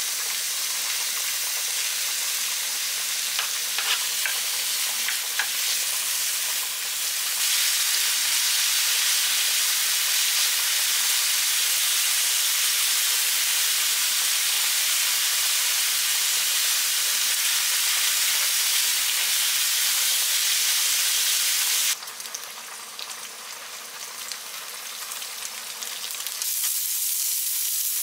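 Sliced pork and mushrooms sizzling in a frying pan as they are stirred, a steady frying hiss with a few light clicks in the first several seconds. The sizzle gets louder about seven seconds in, turns quieter and thinner about 22 seconds in, and comes back up near the end.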